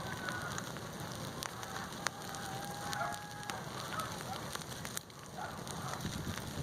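Bonfire of waste paper burning with a steady crackle and a few sharp pops.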